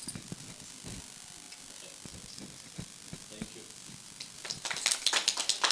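Scattered light clicks and knocks, then a denser run of clicks from about four and a half seconds in.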